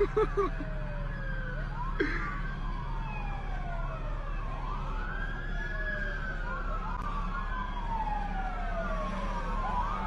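Several emergency-vehicle sirens wailing at once, their long rising and falling tones overlapping. A couple of short, louder sounds come at the very start.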